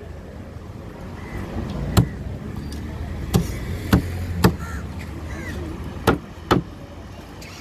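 Large knife chopping through a trevally's head and backbone into a wooden board: six sharp chops at uneven intervals, over a steady low hum.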